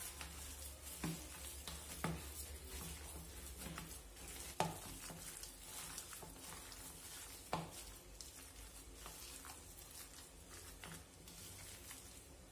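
Gloved hands squeezing and stirring raw lamb pieces coated in tomato paste, oil and spices in a bowl: faint wet squishing with a few sharp knocks against the bowl, the loudest about four and a half seconds in.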